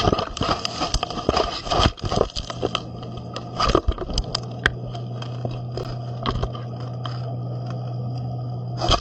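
A tiger shark's teeth knocking and scraping on an underwater camera held in its jaws: a rapid run of sharp clicks and crunches that thins out after about three seconds into scattered knocks, over a steady low hum.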